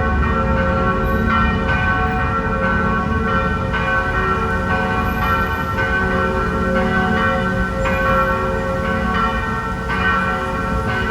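Church bells of St. Ludmila's in Prague ringing a full peal: several swinging bells striking in an uneven, overlapping rhythm, each stroke ringing on into the next, over a low rumble.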